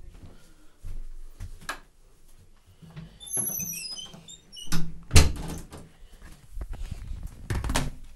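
Several knocks and thumps, the loudest about five seconds in and more near the end, with a brief, wavering high squeak about three seconds in.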